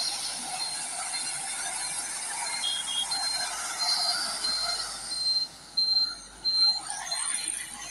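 Road traffic noise from heavily loaded trucks driving past close by. A thin high beep repeats a little under twice a second through most of it.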